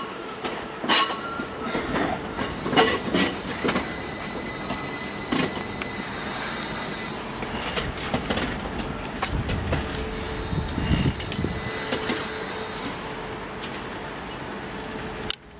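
Train moving along the rails, its wheels clicking over rail joints with a steady high-pitched wheel squeal, then cut off abruptly near the end.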